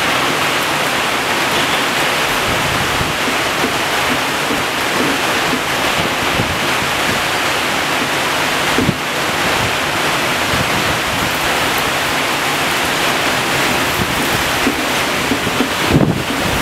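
Hailstorm: torrential rain and hail driven by strong wind, a steady dense roar, with louder gusts near the end.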